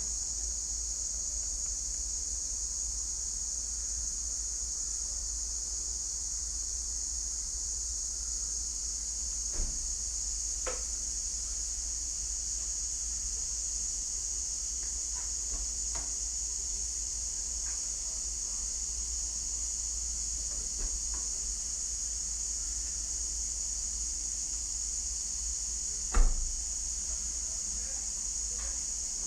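Steady high-pitched chorus of insects with a low rumble underneath, broken by a few faint clicks and a single louder knock near the end.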